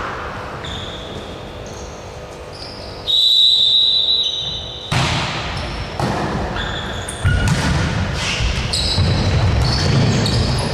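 Game sounds in an indoor sports hall: a ball bouncing with repeated thuds, mostly from about five seconds in, among short high squeaks, with one steady high tone lasting about a second about three seconds in.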